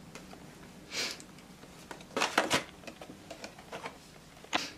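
Cardboard retail box and clear plastic tray being opened and handled: a few short rustling, scraping bursts with small clicks in between, the loudest cluster a little after two seconds in.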